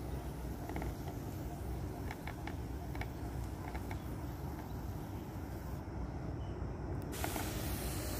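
Garden sprayer spraying a potted lime tree: a steady low rumble with a few small clicks, then a broad hiss of spray that comes in sharply about seven seconds in.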